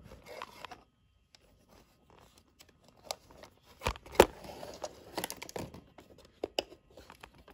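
Handling noise: scattered clicks, knocks and rustles from hands and a handheld camera moving over a plastic LEGO build, with two sharp knocks about four seconds in.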